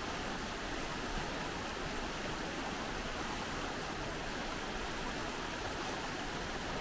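Fast-flowing floodwater rushing over a shallow, rocky creek bed: a steady, even rush of water.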